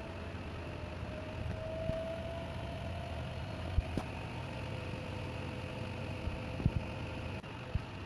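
Bosch Serie 6 8 kg inverter front-load washing machine running its 600 rpm spin cycle on a silk saree: a steady low hum with a faint motor whine. A few short knocks come about halfway through and again near the end.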